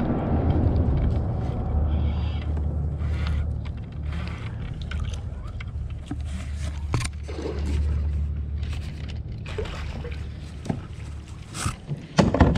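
Scattered knocks and scrapes from a kayak and fishing gear being handled against a barnacle-crusted concrete bridge piling, over a steady low rumble. The knocks come more often near the end.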